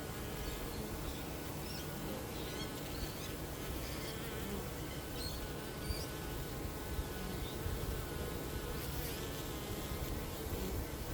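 A swarm of honeybees buzzing: a steady, dense drone of many overlapping wingbeat tones.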